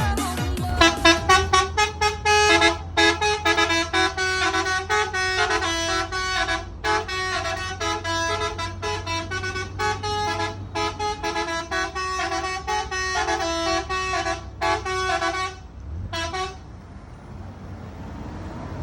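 Three-trumpet truck horn driven by a 17-tone melody module, playing a fast tune of short, quickly changing notes that stops about three-quarters of the way through, over a steady low hum.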